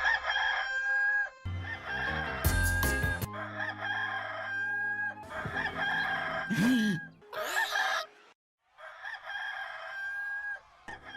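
A rooster crowing cock-a-doodle-doo several times in a row, each crow one to two seconds long, with low music under some of the crows.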